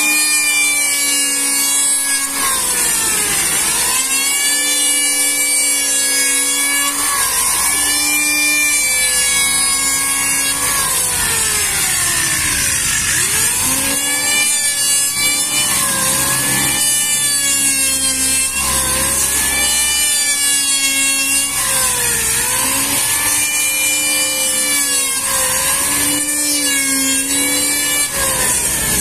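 Handheld electric wood planer running and cutting along a wide board in repeated passes. Its steady whine sags in pitch and recovers every two to three seconds as each pass bites, over a constant hiss of cutting.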